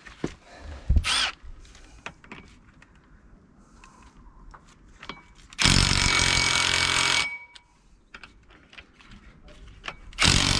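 Cordless impact wrench hammering on the flywheel bolts of an engine to loosen them. It goes in bursts: a short one about a second in, a longer one of about a second and a half near the middle, and another starting just before the end.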